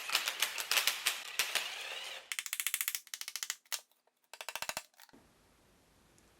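Hand ratchet wrench clicking in fast runs as an engine bolt is backed out. The clicking comes in several short bursts and stops about five seconds in.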